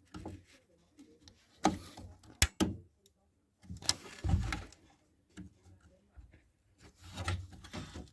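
Handling noise from fitting a DDR4 RAM stick into a desktop PC's memory slot: a few sharp plastic clicks and knocks about two seconds in, then duller thumps and rubbing as the module is pushed and repositioned.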